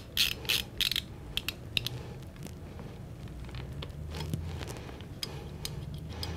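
A screwdriver turning and tightening the cylinder latch thumb piece nut of a Smith & Wesson Model 29 revolver: quick metal-on-metal scrapes, about four in the first second, then fainter scattered ticks as it seats.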